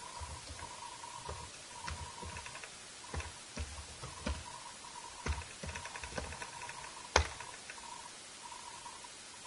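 Computer keyboard being typed on in slow, irregular key clicks, with one sharper, louder keystroke a little after seven seconds in as the command is entered.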